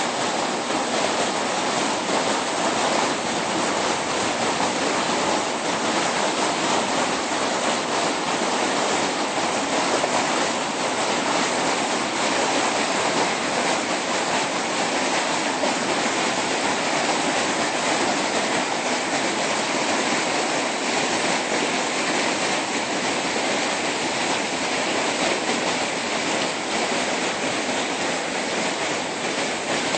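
Rushing water making a steady, even roar that does not change.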